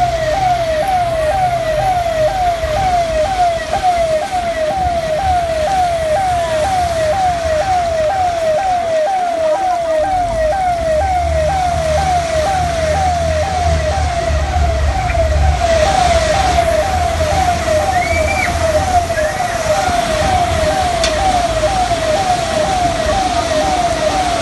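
Emergency siren yelping without a break, a rapid sweep repeating about twice a second, over a vehicle's low engine rumble and a steady wash of noise.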